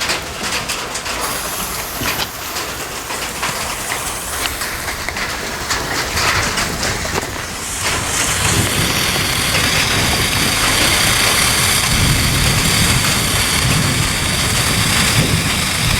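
Steady rain falling. About halfway through, a louder steady hiss with a thin high tone in it starts and keeps going: the pooping-pop novelty firework burning.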